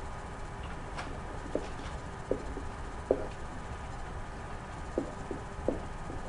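Pen knocking and scraping on an interactive whiteboard while writing: about half a dozen short, sharp knocks spread over a few seconds, over a steady low room hum.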